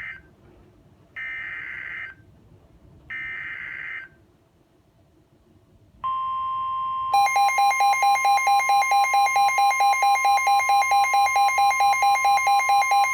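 NOAA Weather Radio Emergency Alert System sequence received on a Midland WR-120EZ weather radio: three roughly one-second bursts of SAME header data, then the steady 1050 Hz warning tone. About a second after the tone starts, the radio's own alert alarm comes in over it with loud, rapid pulsing beeps, which stop near the end while the tone goes on.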